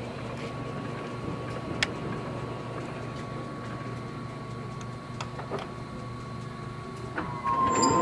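Stanko 1A983 engine lathe running under power: the spindle drive and gearbox make a steady hum with a steady whine, and there are a few light clicks. It grows louder near the end.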